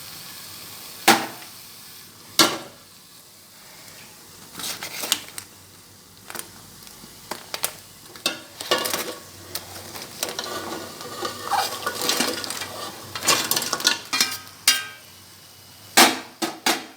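Fried crab pieces going into a wide pan of frying onion-chilli masala and being stirred: hard clacks of crab shells and utensils against the pan, single knocks at first and a busy run of clattering in the middle, over a faint sizzle.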